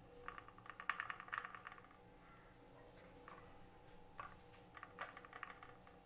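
Faint scraping and clicking of a spoon against a thin clear plastic chocolate mould as melted chocolate is spooned and spread into its cavities. It comes in two quick flurries about a second long, near the start and about five seconds in, with a few single ticks between.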